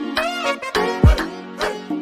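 Instrumental break of a song: a melody that bends in pitch over a steady drone, with one deep drum hit about a second in.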